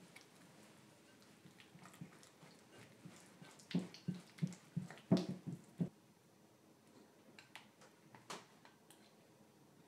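Silicone spatula working a thick soft-cheese cream in a glass bowl: soft wet squelching and scraping strokes, with a quick run of stronger strokes in the middle and one sharper click near the end.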